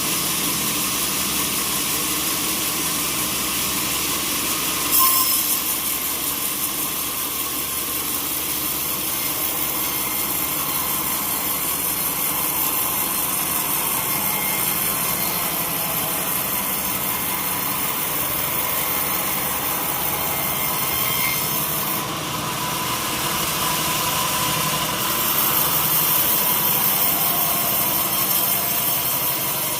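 Sawmill saw running and cutting through an old teak log: a steady mechanical din with a high hiss. There is a sudden jump in level about five seconds in, after which the hiss stays stronger, and the sound grows harsher again in the later part.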